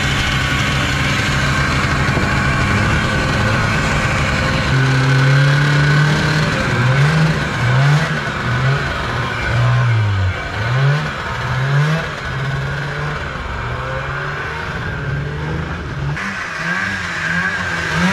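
Two-stroke snowmobile engine running steadily for a few seconds, then revving up and down over and over as the sled is ridden off across the snow.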